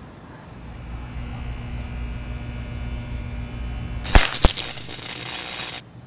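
High-voltage electrical arcing on a utility pole as a woodpecker is shocked: an electric buzz swells from about half a second in, a burst of sharp cracks comes about four seconds in, then a hissing crackle that cuts off suddenly near the end.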